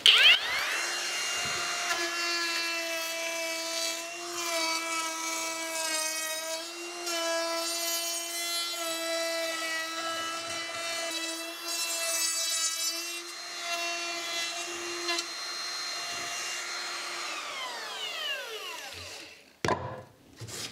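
Cordless trim router with a roundover bit spinning up to a steady high whine and cutting a roundover along the edge of a softwood 4x2 frame, its pitch dipping slightly under load. Near the end it is switched off and winds down with a falling whine.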